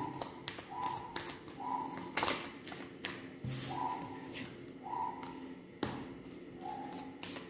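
Tarot cards being handled on a wooden table: soft rustles and light taps of cards, with two sharper taps about two and six seconds in.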